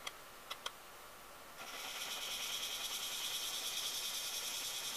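A few small clicks, then, about a second and a half in, a steady scratchy rasp with a slight even pulse: a hand-plane iron being rubbed in small swirls on a diamond sharpening plate to hone its edge.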